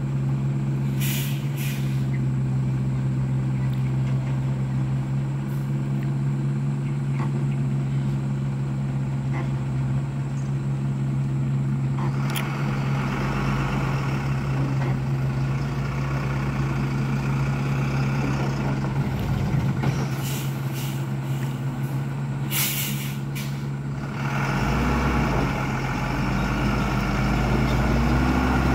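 Mitsubishi Fuso dump truck's diesel engine running steadily while the tipper body is lowered, with short sharp air hisses near the start and again about two-thirds in. Near the end the engine note climbs as the truck moves off.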